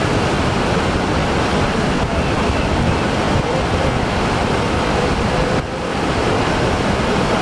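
Rough surf breaking continuously, loud and steady, with wind rumbling on the microphone. The sound dips briefly about five and a half seconds in.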